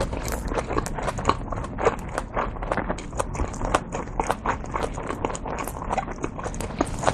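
Chewing a large mouthful of dumpling, close on a lapel mic: a quick, irregular run of wet mouth clicks and smacks, several a second.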